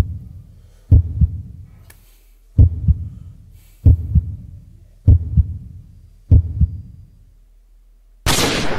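Slow heartbeat sound effect: a deep double thump, lub-dub, about every second and a quarter. Near the end a loud sudden blast cuts in and tails off.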